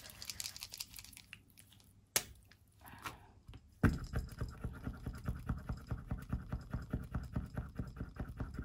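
Faint handling and a single sharp click, then about four seconds in a paint marker starts scribbling on paper with fast, even back-and-forth strokes, around six a second.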